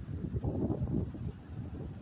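Footsteps crunching irregularly on loose gravel, with some wind rumble on the microphone.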